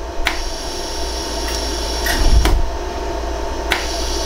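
Pulsed jewellery laser welder firing single shots at a 14K yellow gold ring, each pulse a sharp snap as it fuses gold filler wire into the sizing seam. About five snaps come at uneven intervals over a steady hum.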